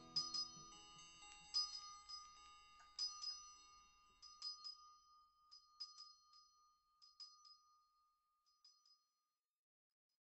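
Outro of a song: high chimes struck at uneven intervals, each note ringing and dying away, with the last low notes of the band fading beneath them in the first second. The strikes thin out and stop about nine seconds in.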